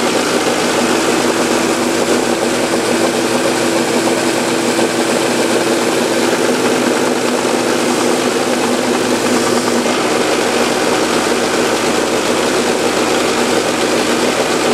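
Benchtop belt sander running steadily and loudly, with a walnut frame piece held against the 220-grit belt to sand protruding maple plugs flush. A steady motor hum sits under the sanding noise.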